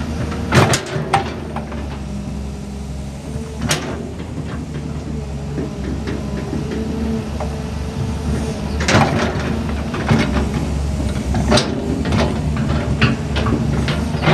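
Excavator engine running steadily under a string of irregular metallic clanks and knocks, the loudest near the start and about nine seconds in.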